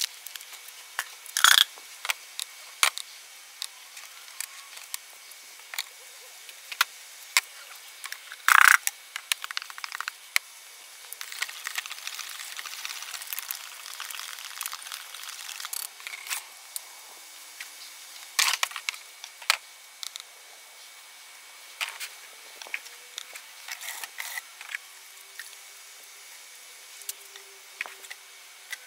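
Hands working with dry glaze powder in a stainless steel bowl: paper bag rustling, a wire whisk scraping and ticking against the metal bowl as the powder is stirred, and scattered clicks of things being handled. Two sharp knocks, one a second or so in and one about nine seconds in, are the loudest sounds.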